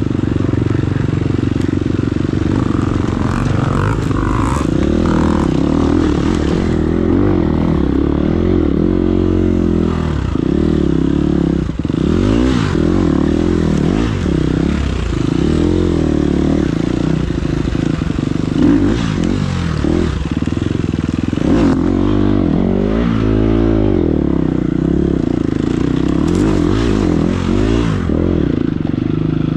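Enduro motorcycle engine running hard, its revs rising and falling again and again, with a steady rushing noise over it.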